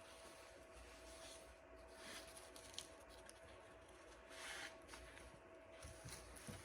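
Near silence: room tone with a faint steady hum and a few faint small ticks.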